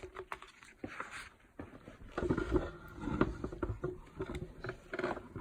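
A picture book being handled and a page turned: soft scraping and small taps, busiest between about two and three and a half seconds in.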